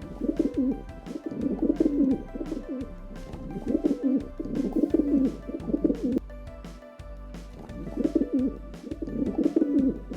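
A bird calling in repeated low, wavering phrases, a group every couple of seconds, with background music underneath.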